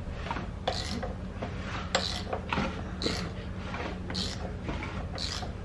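A VW VR6 engine being turned over by hand with a wrench on the crankshaft as a compression check: a string of short mechanical clicking strokes at uneven intervals, about one to two a second.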